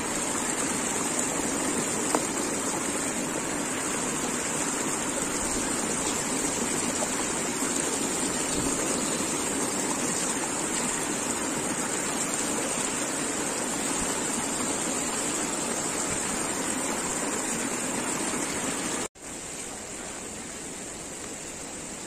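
Steady rushing of a large, fast-flowing river, with a steady high hiss above it. The sound cuts out for an instant about nineteen seconds in and comes back a little quieter.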